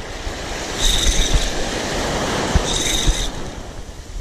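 Spinning reel with a broken line roller bearing squealing in two short, high bursts as the rotor turns, over the steady wash of surf.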